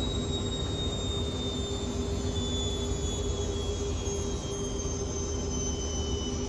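Hotpoint WML540 Aquarius washing machine in its final spin with the door open: a steady, loud drum rumble and motor hum, with a high motor whine whose pitch slowly falls.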